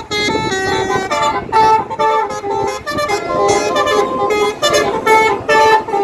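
Bus telolet horn, a Basuri multi-tone air horn, playing a quick melody of short notes that step up and down in pitch, over the bus's running engine.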